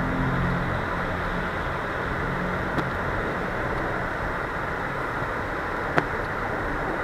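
Vehicle driving: a steady rush of road and wind noise with a low engine hum that fades after the first couple of seconds, and two short sharp clicks, about three and six seconds in.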